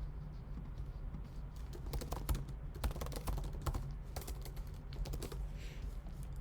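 Computer keyboard typing: irregular key clicks, bunched together in the middle, over a steady low hum.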